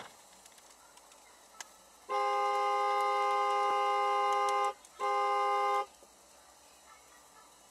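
Car horn honking twice: one long blast of about two and a half seconds, then a short one of under a second.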